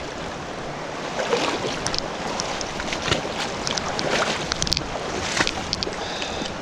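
Steady rush of flowing creek water, with a few sharp clicks and knocks scattered through it.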